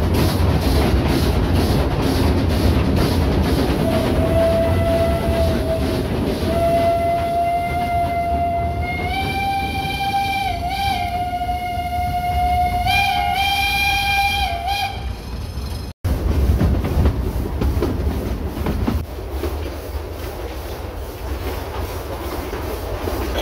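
Narrow-gauge train rolling along the track with a steady rumble while the 1925 Vulcan steam locomotive's whistle blows one long blast of about ten seconds, starting about four seconds in and wavering in pitch a few times. After a brief break in the sound, the rolling rumble goes on alone.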